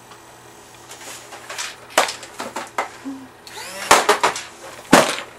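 Plastic toy blasters being handled and fired: a series of sharp clacks and knocks, the two loudest about four and five seconds in.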